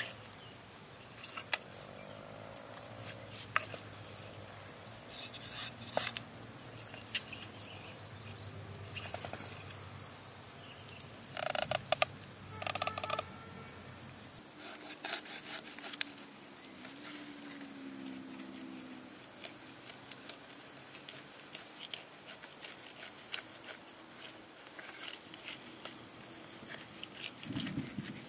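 Crickets chirping in a steady, even pulse, with scattered light knocks and rubbing as a whole fish is handled on a wooden cutting board beside a cleaver.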